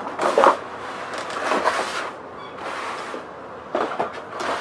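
Cardboard motherboard box being opened by hand: the lid and inner box slide and scrape against each other in several short rustling bursts.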